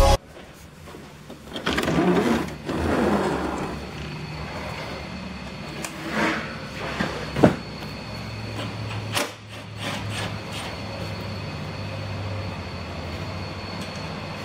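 Car repair shop ambience: a steady low hum with scattered knocks and clanks, the sharpest about seven and a half seconds in.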